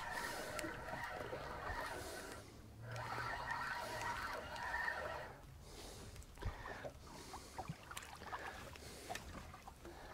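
Fishing reel being cranked in two spells as a hooked toadfish is wound up to the surface, over wind and water noise. It goes quieter after about five seconds, with a few light clicks.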